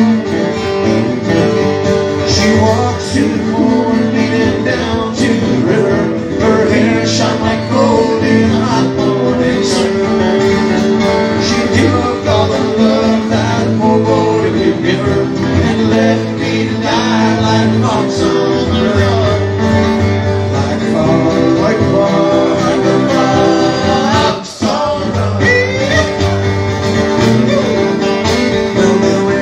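Live country/bluegrass-style music: two acoustic guitars strummed while male voices sing.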